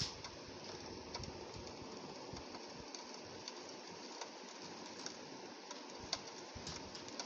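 Rain on a window pane: a steady hiss with scattered, irregular ticks of drops striking the glass.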